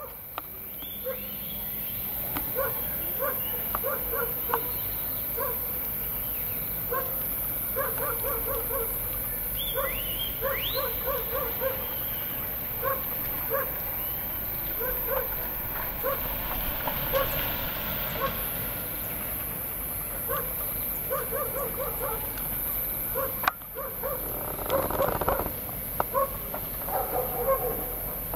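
Dogs barking in quick runs of three to five barks, off and on, with a single sharp knock about three quarters of the way through.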